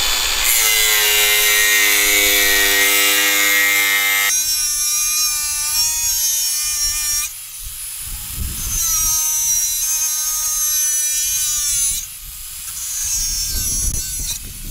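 Makita GA4033 cordless angle grinder running with a high whine and a hiss, its disc cutting through steel sheet along a clamped straightedge. The whine's pitch and level shift about four seconds in and dip twice later as the load on the disc changes.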